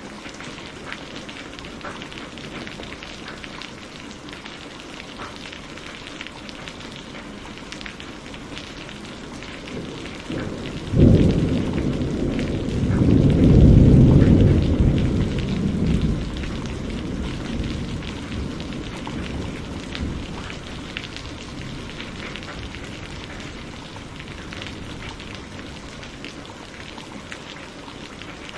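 Steady rain, with a clap of thunder about a third of the way in that rumbles for several seconds and then fades back into the rain.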